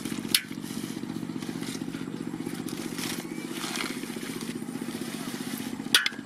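An engine running steadily, a low throb with a fast, even pulse, with a sharp click about a third of a second in and another near the end.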